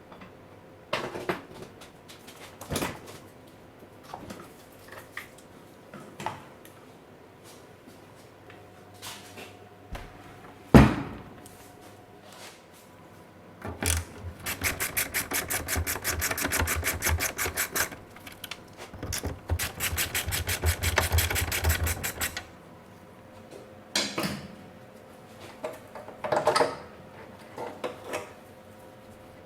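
Workshop dismantling noises: scattered clanks and knocks, one hard loud knock about eleven seconds in, then two runs of a fast, even rattling from a power tool, the first about four seconds long and the second about three, followed by more knocks.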